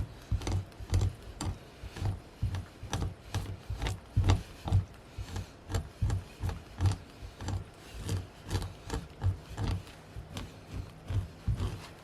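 Hand scraping of a hide: a scraper or fleshing tool dragged in repeated strokes over the skin on a beam, about two strokes a second, each a dull thud with a rasping scrape.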